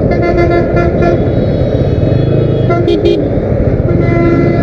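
Vehicle horns honking in road traffic, several steady blasts, with the low rumble of a moving motorcycle and wind underneath.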